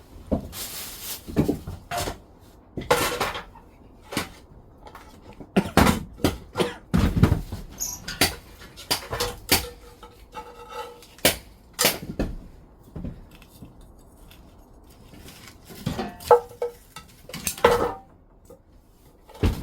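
Irregular knocks, clatters and rustling, as of objects being handled and set down, at uneven intervals with short pauses between.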